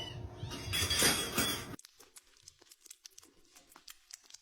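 Packaging rustling and crinkling loudly, stopping abruptly after under two seconds, then faint scattered crinkles and clicks.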